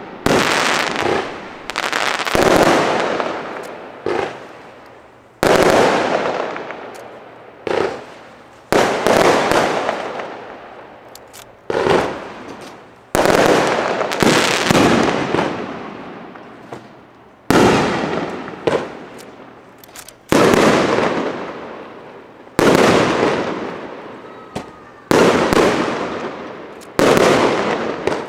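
Aerial firework shells bursting one after another, a sharp bang every one to three seconds, each trailing off in a long echo.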